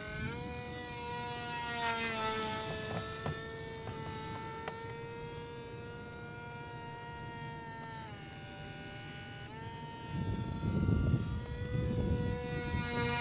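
The small electric motor and propeller of a WLtoys F959S Sky King foam RC plane buzzing steadily in flight. Its pitch drops for about a second and a half around eight seconds in, then comes back. Low rumbling wind noise on the microphone comes in near the end.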